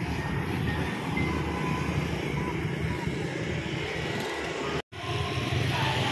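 Steady street noise with a motorcycle engine running close by and faint voices. The sound cuts out for a moment near the end.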